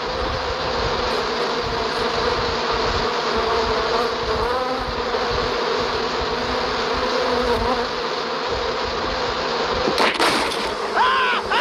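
Cartoon sound effect of a swarm of bees buzzing steadily, swelling in the first second. About ten seconds in there is a sharp crash, and a voice starts yelling right at the end.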